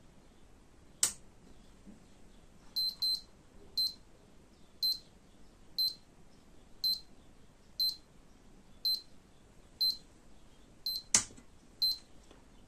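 LCD power supply tester beeping with short high beeps about once a second, with two sharp clicks, one about a second in and a louder one near the end.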